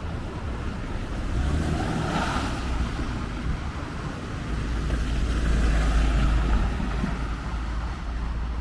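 Vehicles passing on a snowy, slushy city street, their tyres hissing, with one swell about two seconds in and a longer one around six seconds. Low wind rumble on the microphone runs under the second pass.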